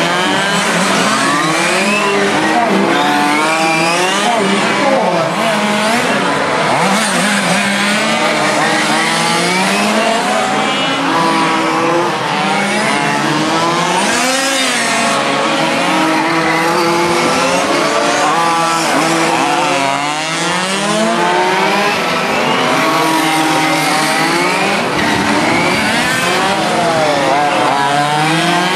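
Several radio-controlled model racing cars lapping a track together, their small high-revving motors whining up and down in pitch as they accelerate and slow through the corners, many of them overlapping at once.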